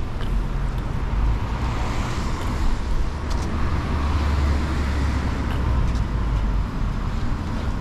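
Road traffic on a wet city street: a car passing, its tyre hiss swelling and then fading over a few seconds above a steady low rumble of traffic.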